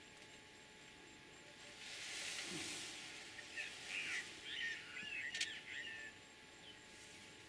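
A string of short, high chirping calls over outdoor ambience, after a brief rush of noise, with a sharp click among them about five seconds in.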